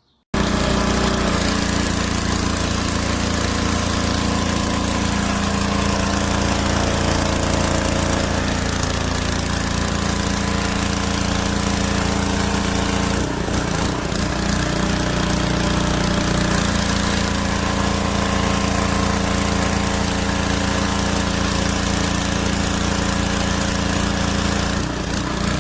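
Pressure washer running steadily, a loud, even mechanical drone from its motor and pump. It dips briefly about 13 seconds in and changes tone a few seconds later.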